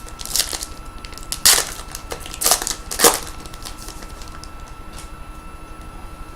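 Trading card packs and cards being handled: four short crinkling, rustling sounds in the first three seconds, then quiet.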